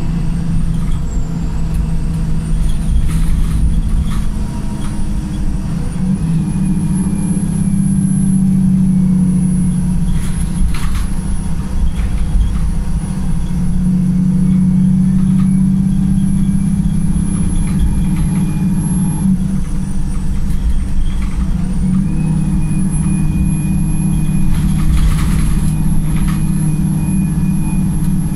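Wright Pulsar-bodied VDL SB200 single-deck bus engine running under way, its note shifting up and down several times as the automatic gearbox changes and the engine pulls, with a high whine that dips and rises again. A few short hisses come through. The bus is running in limp mode, according to its owner.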